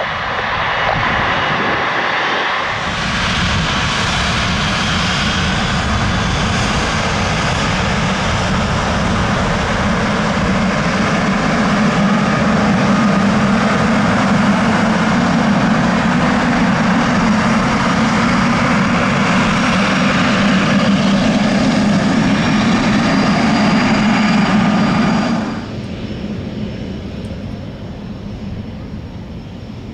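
Boeing 777-300ER's twin GE90-115B turbofan engines running steadily at taxi power while the airliner lines up on the runway, with a strong low hum under the jet noise. The sound drops away suddenly about 25 seconds in, leaving a much quieter background.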